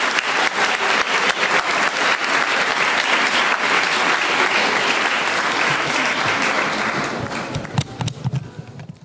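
Audience applauding, dying away to a few scattered claps near the end.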